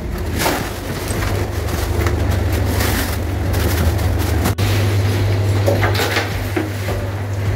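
Steady low hum of a refrigerated truck's cooling unit running inside the chilled cargo box, at -20 °C. Scattered rustles and knocks sound over it as ice in a wooden tub is handled. The hum breaks off for an instant about halfway through.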